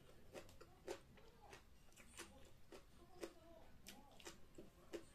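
Faint chewing and eating sounds from a person eating with her fingers: irregular small wet mouth clicks and smacks, several a second at times.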